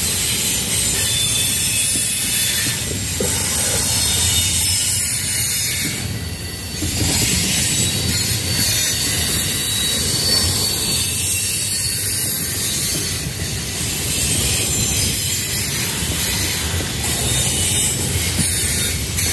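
An intermodal container train's freight cars rolling past, a steady loud rumble of wheels on rail with a thin high-pitched wheel squeal over it.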